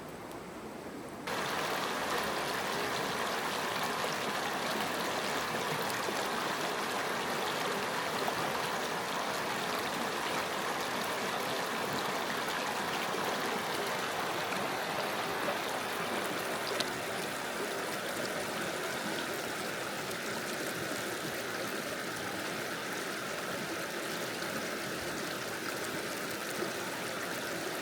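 Running water: a steady, even rush that comes in abruptly about a second in and holds unchanged.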